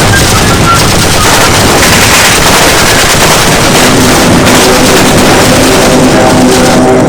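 War-film battle sound effects: loud, dense, continuous gunfire-like noise. About four seconds in, a steady drone of several tones joins it.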